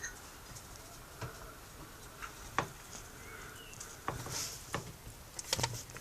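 Heavy breathing late in pregnancy: scattered soft clicks and scratchy rustles, with a short breathy hiss a little past halfway.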